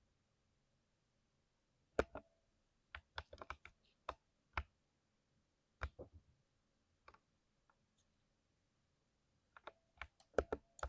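Keys pressed on a 60% mechanical keyboard with lubed switches, as sparse separate keystrokes. The first press comes about two seconds in, followed by a quick cluster of presses and scattered single ones, then a faster run of keystrokes near the end.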